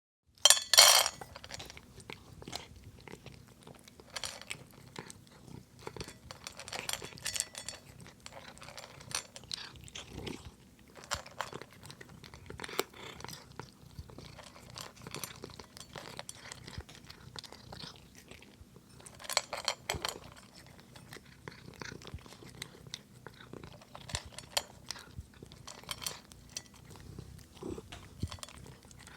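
Domestic cat crunching dry kibble: irregular crisp crunches and chewing throughout, loudest about a second in and again around twenty seconds, over a steady low purr.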